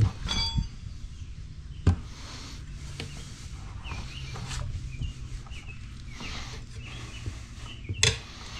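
Hand tire spoons levering a tubeless motorcycle tire's bead over a cast mag wheel rim: a ringing metal clink at the start, a sharp knock about two seconds in and a louder clack near the end.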